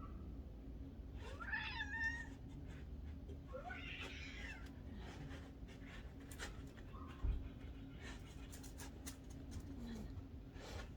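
A domestic cat meowing twice, a little over a second in and again about four seconds in, with a few faint clicks afterwards.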